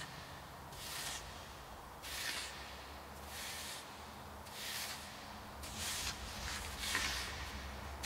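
Bunker rake drawn through sand in repeated strokes, a scraping swish about once a second.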